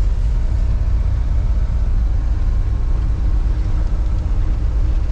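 A moving road vehicle running steadily: low, even engine and road noise.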